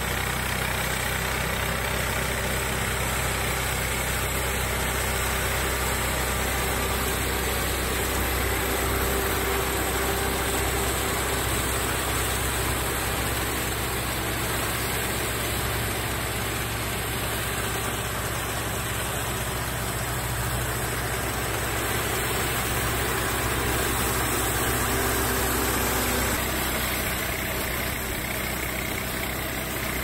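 Small crawler wheat harvester running steadily while harvesting, its engine humming together with the cutter and threshing and winnowing machinery. The sound changes slightly in character about 26 seconds in.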